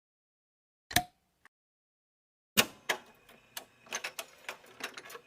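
A single sharp click about a second in, then an irregular run of sharp clicks and taps from about two and a half seconds in.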